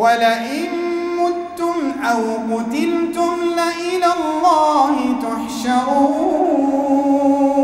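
Male imam reciting the Quran in a melodic chant, one long drawn-out phrase whose pitch winds down and back up without a break.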